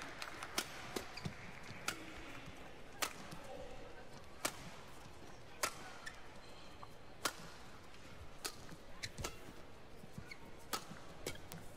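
Badminton rally: rackets striking the shuttlecock with sharp cracks. There is a quick run of hits in the first two seconds, then a longer exchange with a hit about every second and a half.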